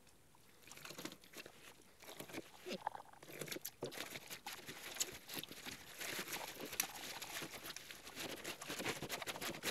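Plastic mailer bag crinkling and tearing as it is slit open with a utility knife and pulled apart by a gloved hand, an irregular run of crackles starting about half a second in.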